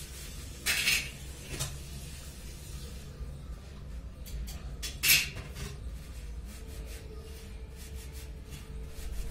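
Indoor household background: a steady low hum, broken twice, about four seconds apart, by a short sharp noise, with a few faint clicks between.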